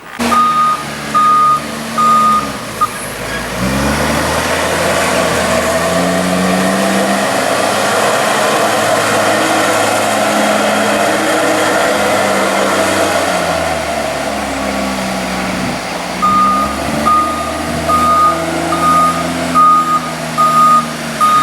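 A JCB's diesel engine works under load as it rolls a maize silage clamp back and forth. Its reversing alarm beeps about one and a half times a second while it backs up at the start and again from about two-thirds of the way through. In between, the alarm stops and the engine revs rise and fall as it drives forward over the clamp.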